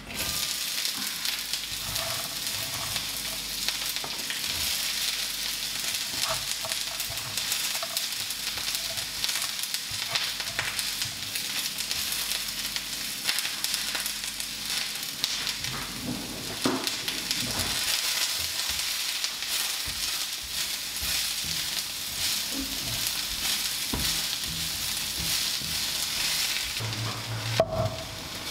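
Food frying in hot oil in a pan, a steady sizzle that starts suddenly, with occasional light knocks and scrapes of a utensil in the pan.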